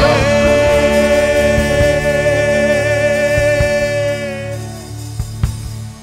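Live rock band closing a song: a singer holds one long final note with vibrato over the band for about four and a half seconds, then it fades away, with a couple of drum hits near the end.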